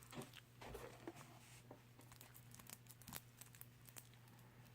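Faint crinkling and scattered small clicks of plastic shrink-wrap being cut and peeled off a deck of playing cards.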